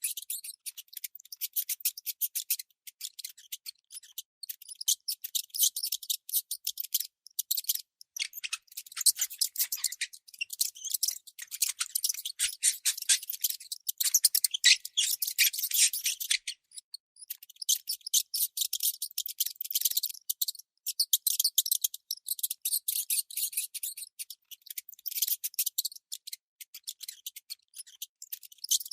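Baby mouse squeaking, as a sound effect: rapid, high-pitched chittering squeaks and clicks in runs of a few seconds, with brief pauses between.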